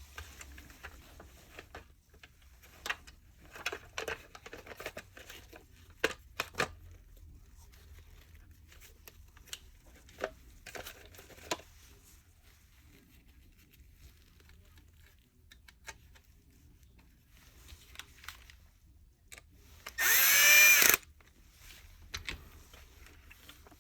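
Plastic parts of a vacuum cleaner head clicking and knocking as they are handled and fitted together. Near the end a cordless power screwdriver runs for about a second, its pitch rising and then falling.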